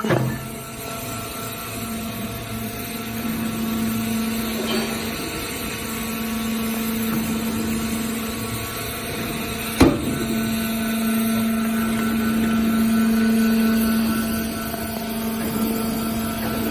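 ACCE VB1000 horizontal baler's hydraulic power unit running with a steady hum, with one sharp knock about ten seconds in.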